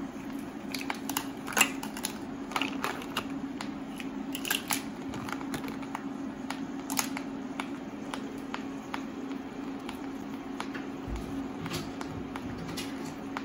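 Green mussel shells clicking and clacking against one another and the stainless steel pan as a handful is dropped in among crabs and shrimp. The clicks are densest in the first few seconds, then come sparsely, over a steady low hum.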